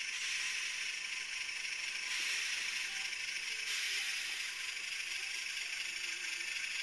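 HO-scale BLI Trackmobile model running slowly on the track, its DCC sound decoder playing a thin, rattly diesel-engine sound through a tiny onboard speaker. The sound is mostly high-pitched hiss with little low end, and it shifts slightly about two seconds in and again near four seconds.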